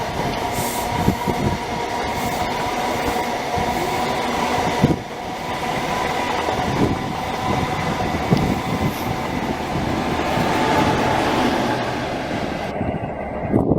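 Train running past on the line, its wheels knocking over the rail joints under a steady high whine. The sound changes abruptly near the end.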